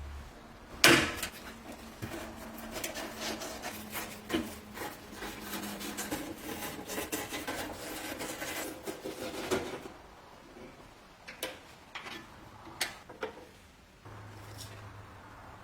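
Workshop handling sounds: a sharp knock about a second in, then several seconds of scraping and rubbing with many small clicks, then a few separate taps.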